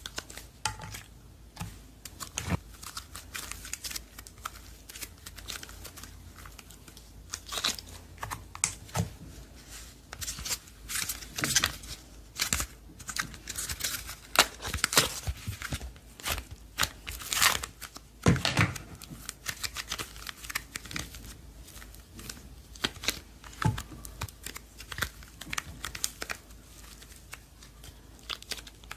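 Slime being squished and stretched by hand, giving dense sharp crackles and pops that are busiest through the middle stretch.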